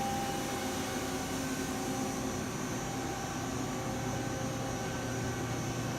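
Steady machine hum of a powered-up Mazak 18MS CNC lathe idling with its drives on, a constant low drone with faint steady tones over it.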